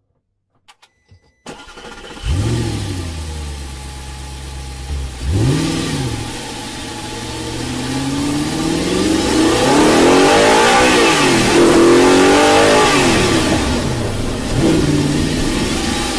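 Car engine starting about two seconds in, idling briefly, then revved up and down again and again, loudest in a long high rev in the second half.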